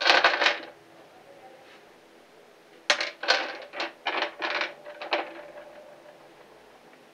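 Rocks being set down by hand on the glass bottom of an aquarium, clacking against the glass and against one another: a short clatter at the start, then a run of separate clacks about three to five seconds in.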